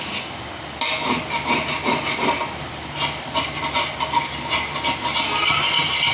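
A spatula scraping through grated carrots and milk in a large metal pot, in quick repeated stirring strokes that start about a second in.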